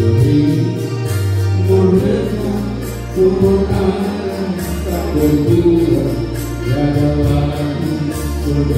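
A man singing a melody into a handheld microphone through a PA, over amplified backing music with a bass line that moves from note to note.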